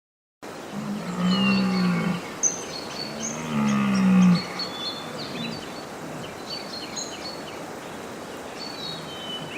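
Two long, low calls from a large animal, each about a second and a half, with small birds chirping high in the background throughout.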